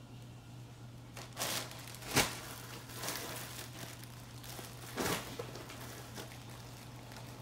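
Plastic packaging, a poly mailer bag and plastic-wrapped jeans, crinkling as it is handled, with a few short sharp rustles, the loudest about two seconds in. A steady low hum runs underneath.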